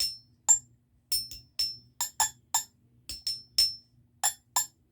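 Stacked cups set on a drum being tapped, about a dozen sharp clicky knocks in a quick, uneven rhythm, each with a short high ring. The tapping stops shortly before the end.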